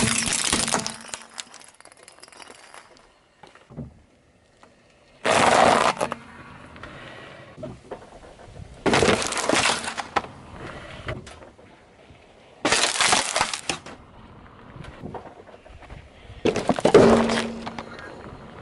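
Car tyre rolling over and crushing objects on asphalt: small coloured glass light bulbs shatter and crunch at the start, then four more sharp crunching crushes follow about four seconds apart, one of them a cardboard pizza box flattening.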